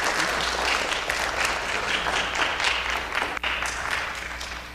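Audience applause: many hands clapping together, thinning out and fading near the end.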